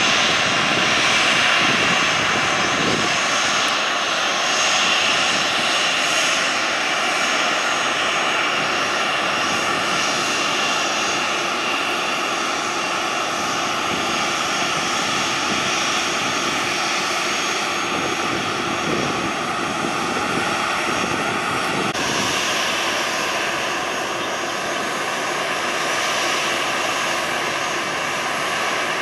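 Boeing 737 jet engines running with a steady high whine over a broad rush as the airliner moves along the runway. The whine shifts abruptly in pitch about two-thirds of the way through.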